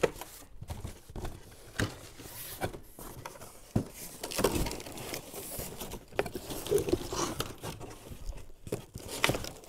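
Cardboard shipping box being opened and handled: flaps rustling and scraping, with scattered short knocks and taps.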